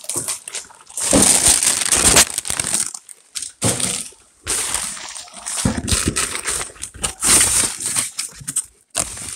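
Crinkling and rustling of a foil-faced insulated box liner and cardboard being handled and pulled back, in irregular bursts with short pauses.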